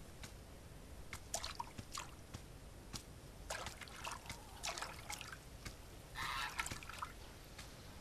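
Pond water sloshing and dripping in faint, irregular splashes as a long pole is worked through it, with the loudest splash about six seconds in.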